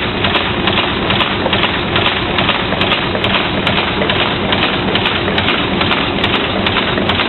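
Paper cup making machine running, a steady mechanical clatter and hum with a regular clack about two and a half times a second.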